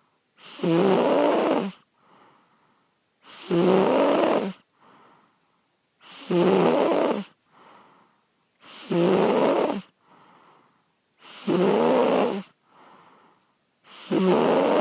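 A person snoring loudly and regularly: six rough snores, each about a second long, come about every two and a half seconds, with a faint breath out between them.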